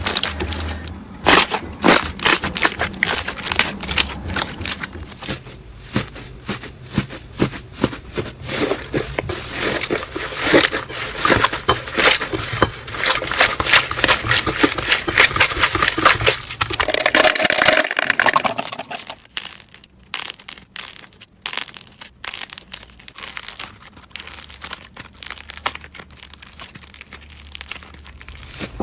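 Slime being squeezed and poked, giving rapid crackling clicks and pops. A brief louder swell comes about two-thirds of the way through, after which the clicks thin out.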